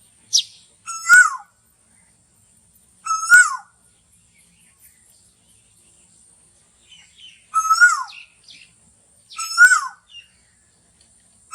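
Asian koel calling: four loud, short calls, each rising a little and then sliding down. They come in two pairs about two seconds apart, with a longer pause between the pairs. Faint chirps of other birds sound in the pause.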